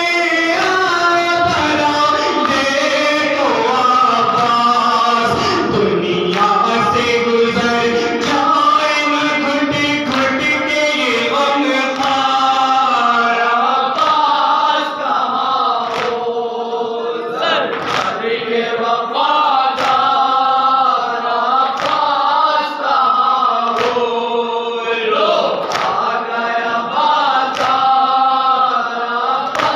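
A group of men chanting a noha (Shia mourning lament) together through a microphone, a lead voice with the others joining in unison. From about halfway through, sharp slaps recur at a steady beat: chest-beating (matam) keeping time with the lament.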